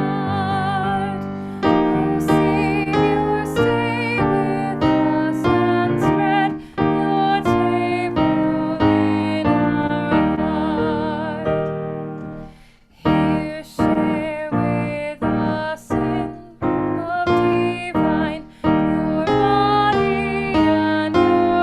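Keyboard music, a slow piano-style melody of struck, fading notes over chords, with a brief pause a little past halfway before it resumes.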